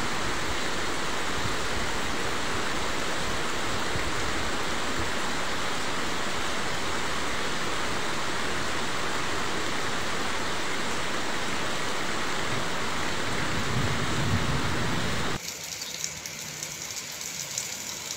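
Heavy rain pouring down as a steady, even hiss, which cuts off abruptly about 15 seconds in and gives way to a much quieter outdoor background.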